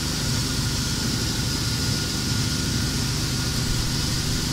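Plastic pelletizing line machinery running steadily: a constant low hum with a faint steady high whine.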